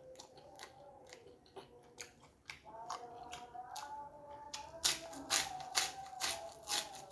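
Mouth-close eating sounds: soft chewing clicks, then loud crisp crunching from about five seconds in as a yellow kerupuk cracker is bitten and chewed.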